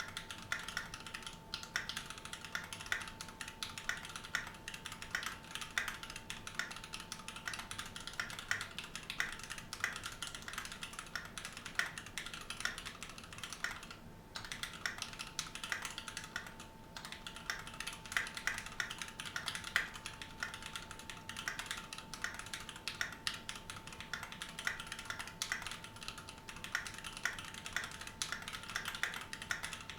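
Continuous typing on a Keychron Q2 aluminium-cased mechanical keyboard with stock Gateron Brown tactile switches: a rapid, uneven patter of keystroke clacks, with a short pause about fourteen seconds in.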